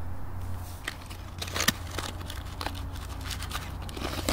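Light crinkling and scattered small clicks and scrapes of things being handled, over a low steady rumble.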